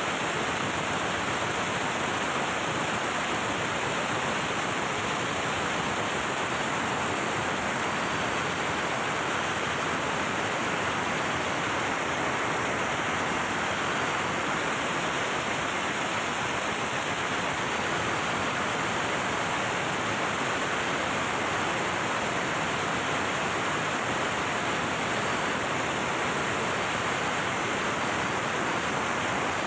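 MAN B&W auxiliary generator diesel engine running steadily, heard as a dense, even wash of loud engine-room noise with no distinct beat.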